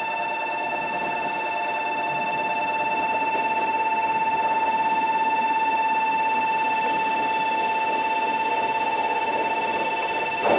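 Japanese railway level-crossing warning bell ringing: a steady, rapidly pulsing electronic tone, sounding while the crossing barrier comes down, the signal that a train is about to pass. A brief knock just before the end.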